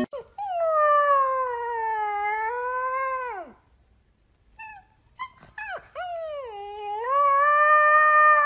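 A husky-type puppy howling: two long howls of about three seconds each, with a few short yips in the gap between them. The first sags slowly in pitch and falls away at its end; the second dips, rises and holds, then falls off.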